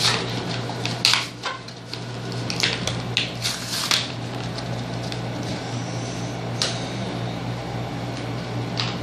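Cardboard and plastic toy packaging being handled and torn open: a run of short crinkling rustles in the first four seconds, then a couple more later, over a steady low hum.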